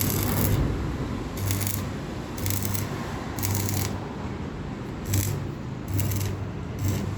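Electric arc welding in short stitches: about seven crackling bursts roughly a second apart, each under a second long, with a low hum under each.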